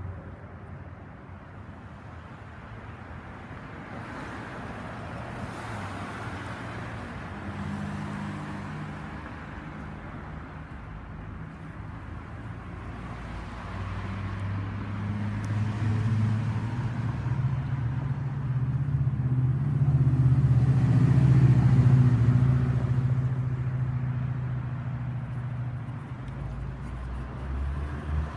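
Street traffic: a motor vehicle's engine grows steadily louder, peaks about twenty seconds in, then fades as it passes, over a continuous road noise.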